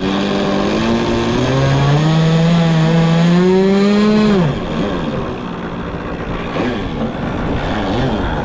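Small two-stroke engine of a Seagull Racer Delta 40 RC model airplane running at high revs. Its pitch climbs steadily for about four seconds, then falls sharply and the sound gets quieter. After that the pitch wavers up and down.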